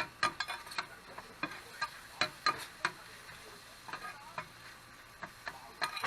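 Sharp, irregular clicks and clacks of metal cooking utensils working on a grill, over a faint steady sizzle of beef and offal grilling.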